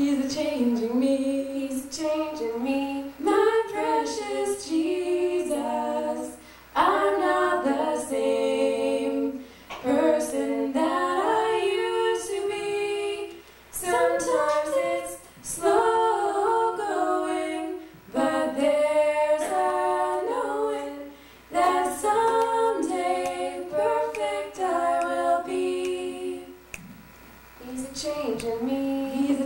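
Two women singing a song a cappella into microphones, in sung phrases with short breaths between them and a longer pause near the end.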